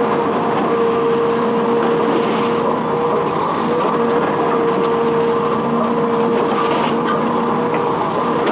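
Hitachi Zaxis 210F amphibious excavator's diesel engine running steadily, with a steady whine over the engine noise.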